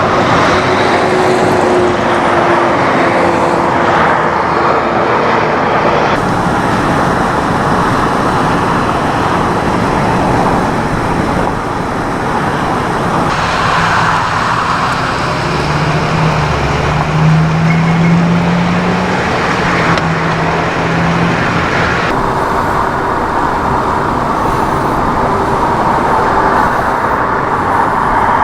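Steady freeway traffic noise, with the hum of engines running close by, changing at a few edits in the footage.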